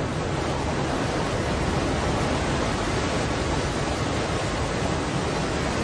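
Steady, loud rush of churning water from a torrent bursting through, as in a glacial lake outburst flood.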